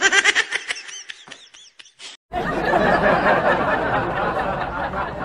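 A laughing sound effect, quick high-pitched giggles, for about two seconds. It cuts off abruptly, and loud, steady outdoor background noise with a low rumble follows.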